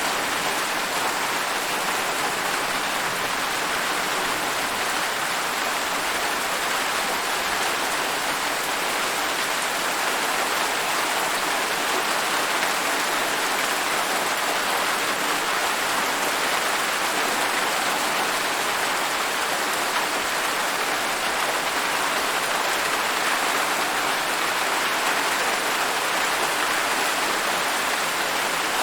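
Steady rain falling, an even, unbroken hiss with no separate drops, thunder or other events standing out.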